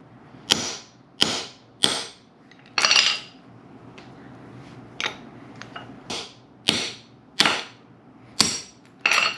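Claw hammer striking a deep socket set on top of a pressed-in stud, knocking the studs out of a steel ball-joint/lower control arm extension plate: about ten sharp metallic strikes with a ringing tail, in two runs with a pause of about two seconds between them.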